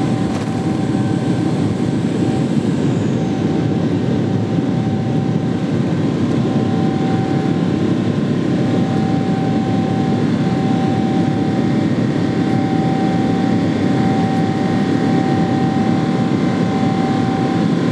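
Steady engine and airflow roar heard inside the cabin of a Boeing 777-300ER under takeoff power, its GE90-115B engines running evenly, with a steady tone held above the roar.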